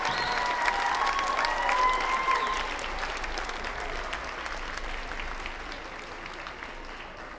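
Audience applauding, the clapping slowly dying down, with a few held high calls over it in the first couple of seconds.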